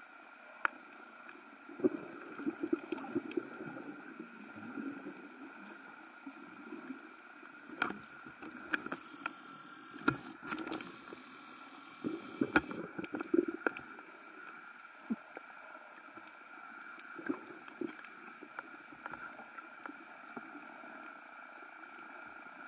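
Muffled underwater sound through a camera's waterproof housing: a steady hum with scattered sharp clicks and low bubbling rumbles, busiest a couple of seconds in and again about twelve seconds in.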